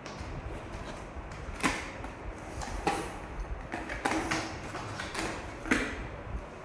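Handling noises while unboxing a toy RC dump truck: four sharp knocks and clacks, about one every second or so, over a steady low background noise.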